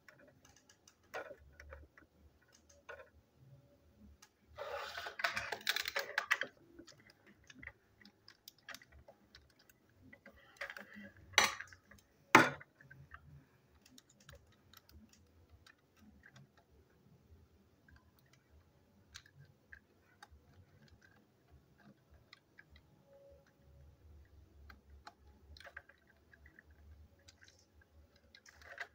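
Plastic toy train engine and tender being handled and worked with a screwdriver: scattered light clicks and taps, a rattling plastic clatter about five seconds in, and two sharp knocks about a second apart near the middle.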